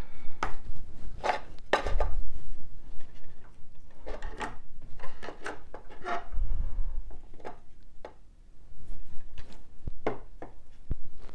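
Small Christmas decorations being handled and set down on a two-tier tray on a table: irregular knocks, taps and rustling.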